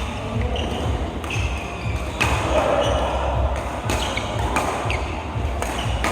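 Several sharp clicks of billiard balls and cue striking, spaced irregularly, over a steady background of hall murmur and hum.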